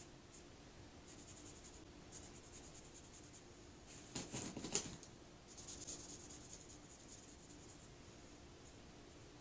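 Faint scratchy rubbing of a cloth on a glitter-coated tumbler, wiping the glitter off. About four seconds in, a short cluster of louder clicks as the rag is pressed onto the pump top of an acetone dispenser bottle, then more rubbing.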